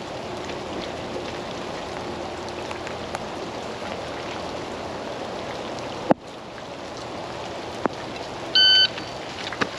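Steady rain falling, with a sharp knock about six seconds in and a smaller click near eight. Near the end an electronic shot timer gives its start beep, one steady tone lasting under half a second.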